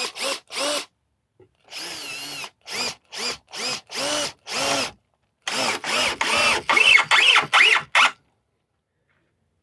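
Power drill driving a screw into pallet wood in a series of short trigger pulses, the motor whine rising and falling with each pulse, with one longer run about two seconds in. It stops about eight seconds in.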